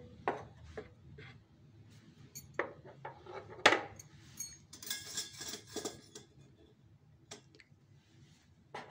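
Kitchen handling sounds at a plastic blender jar: scattered clicks and taps of a utensil against the jar, one sharper knock about three and a half seconds in, and a brief rustling hiss about five seconds in.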